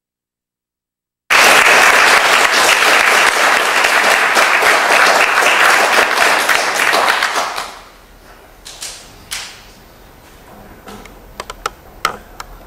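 Audience applauding, loud and dense, fading out about six seconds after it starts; a few scattered sharp clicks follow.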